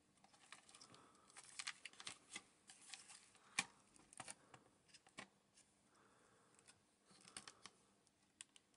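Faint handling noise from a video camera's circuit boards and plastic frame being moved by hand: scattered small clicks and rustles, in two clusters, with a sharper click about three and a half seconds in.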